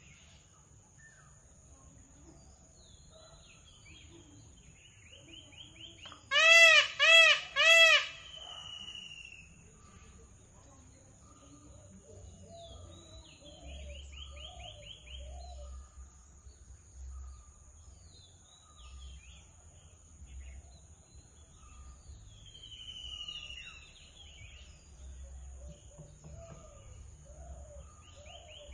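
A peacock gives three loud calls in quick succession about six seconds in. Smaller birds chirp and trill throughout, over a steady high-pitched tone.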